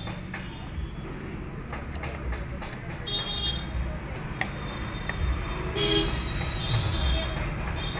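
Steady low traffic rumble with repeated high-pitched vehicle horn toots, the loudest a little after 3 s and around 6 s. A few light metallic clicks come from the aluminium cylinder block being handled on its studs.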